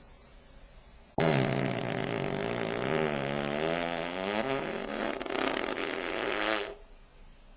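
A long fart that starts suddenly about a second in and lasts about five and a half seconds. Its pitch wobbles up and down before it stops abruptly.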